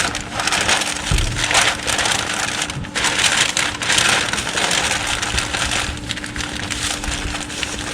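Kraft paper crinkling and crackling as it is folded and crumpled by hand around a metal ratchet, with a constant rustle and many small crackles.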